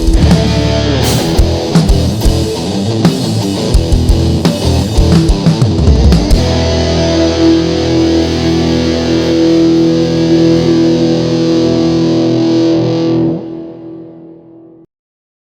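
Distorted electric guitar rock music with drums, ending on a held chord that fades out about fourteen seconds in.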